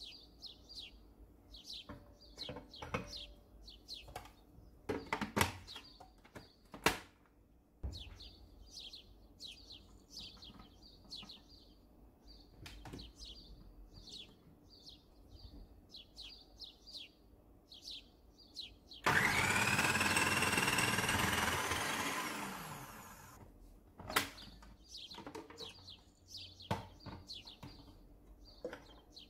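Kenwood food processor motor running for about four seconds with its slicing disc, cutting sausages fed down the tube. Its whine rises as it spins up and falls as it runs down. Earlier there are a few clicks and knocks of plastic parts being fitted, and a bird chirps repeatedly throughout.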